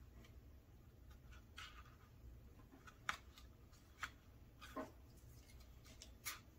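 Near silence with a few faint, short paper rustles and taps, about five, as small construction-paper pieces are handled and pressed onto a paper plate.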